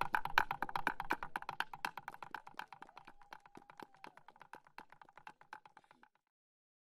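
Background music with a fast, even clicking percussion beat, fading out and stopping about six seconds in.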